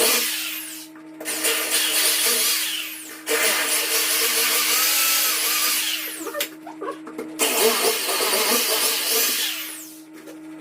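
A handheld power tool running in four bursts of two to three seconds each, stopping sharply between them.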